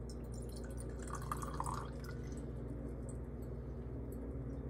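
Acid poured from a glass graduated cylinder into a glass beaker: a faint trickle about a second in, then light drips and small glass ticks.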